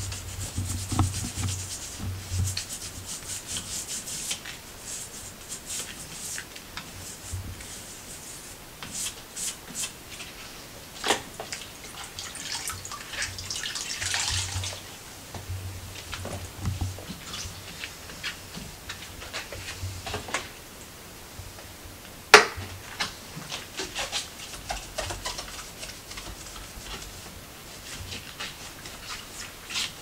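Rubber-gloved hands wiping a painted wooden bannister post and spindles with a damp cloth: irregular rubbing strokes, with a few sharp knocks against the wood, the loudest about three-quarters of the way through.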